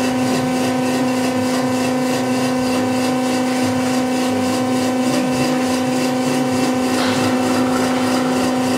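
An electric motor in the machine shop running steadily, a constant-pitch hum that never changes.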